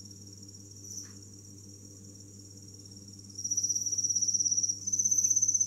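Cricket chirping: a high, fast-pulsed trill, faint at first and loud from about three and a half seconds in, with a brief break near the end. A low steady hum runs underneath.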